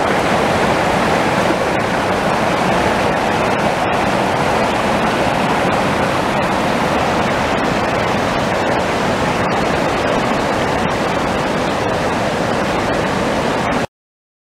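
Mountain creek rushing over rocks and around fallen logs: a steady, loud rush of water that cuts off abruptly near the end.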